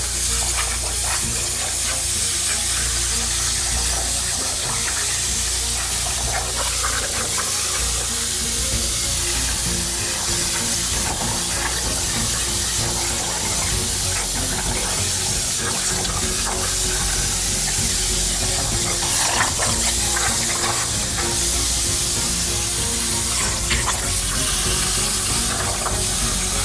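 CNC plasma torch cutting sheet steel over a water table: a loud, steady hiss of the air-plasma jet, with a watery sizzle from below the plate.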